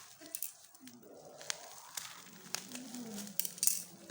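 Packaging being handled during a phone unboxing: crinkling with a string of sharp clicks and crackles, the loudest near the end.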